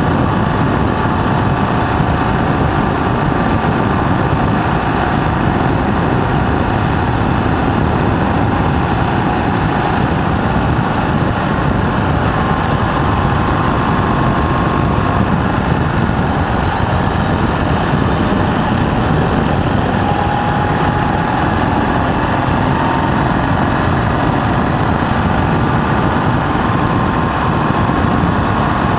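Ural sidecar motorcycle's flat-twin engine running steadily at road speed, with wind and road noise. A faint pitch in the engine note drifts slightly up and down as the speed changes.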